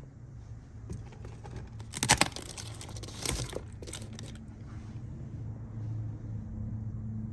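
Crinkling, rustling handling noise as a hand brushes and taps a painted cardboard box model, loudest about two seconds in and fading out after about four seconds. A low steady hum runs underneath.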